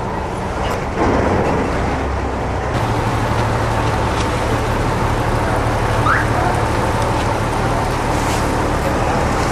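Boat engine drone under a steady wash of water noise, heard from on board a moving river boat. The sound grows louder about a second in.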